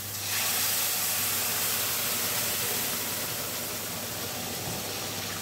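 Hot sugar syrup hitting flour toasted in butter in a hot pan, sizzling and hissing with steam. The hiss swells sharply just after the start, as the syrup goes in a little at a time, then eases off gradually.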